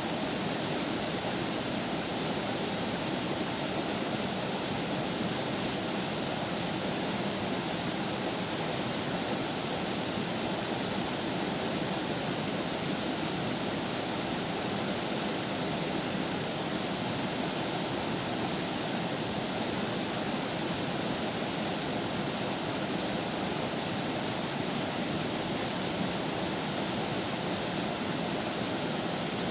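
Flowing river water rushing steadily, an even, unbroken wash of sound with a bright hiss on top.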